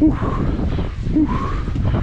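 Wind buffeting the rider's camera microphone as a bicycle is ridden through falling snow, a steady low rumble, with two short vocal sounds from the rider, at the start and about a second in.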